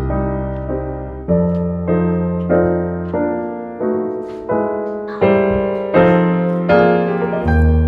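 Background piano music: chords struck one after another and fading, over held bass notes.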